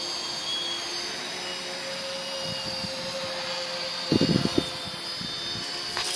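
A quadcopter's four electric motors and propellers running at a steady hover, holding position on their own in GPS position hold. A few low bumps about four seconds in.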